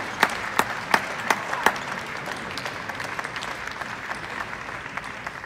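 Table tennis rally: the celluloid ball is struck back and forth off bats and table, sharp clicks about three a second, ending a little under two seconds in. Spectators then applaud the won point, the clapping slowly fading.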